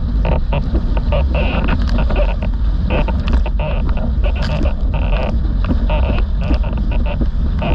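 Wind buffeting an action camera's microphone in a steady low rumble, over the rush and splash of a windsurf board planing across choppy water, with spray spattering irregularly.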